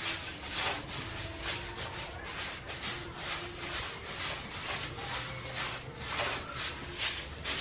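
Stiff bundled stick broom (walis tingting) sweeping over stony dirt ground: a run of short, scratchy strokes, about two a second.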